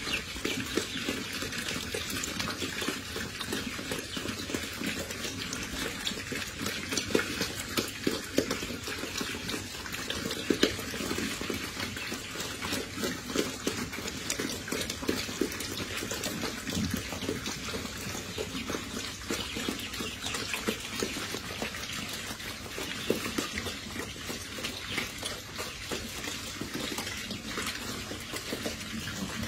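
Several young pigs eating meal from a round trough feeder together: a continuous, dense, wet-sounding chewing and mouthing, made up of many small irregular clicks, with no pauses.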